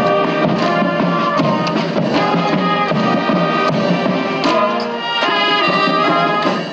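Band music: a melody of held notes changing every half second or so, as played during a parade inspection.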